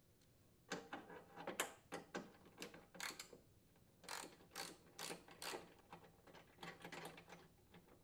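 Ratchet wrench with a 10 mm socket clicking in short irregular runs as bolts on a Honda lawn mower's shroud are loosened.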